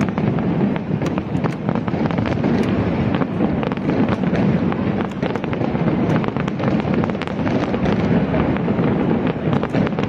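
Fireworks display in a dense, continuous barrage: many sharp cracks in quick succession over a steady low booming, with no let-up.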